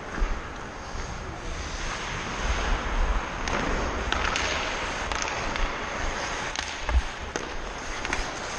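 Hockey skates scraping and carving on the ice as the camera wearer skates, over a low rumble of wind buffeting the body-worn camera, with a few sharp knocks of sticks or puck on the ice.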